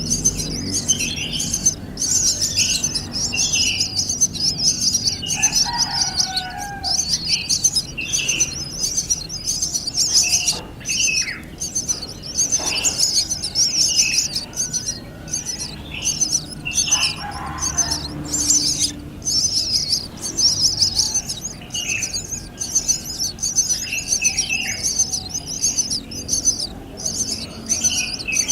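Birds calling: a dense, rapid high-pitched chattering that keeps going, with short falling call notes repeated every second or two.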